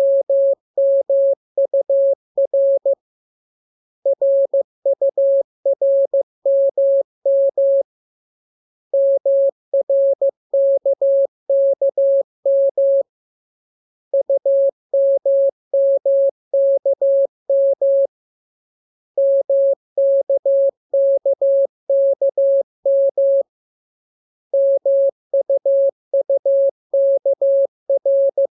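Morse code practice tone: a single clean mid-pitched beep keyed on and off in dots and dashes, sent as groups of characters about four seconds long with a pause of about a second between groups.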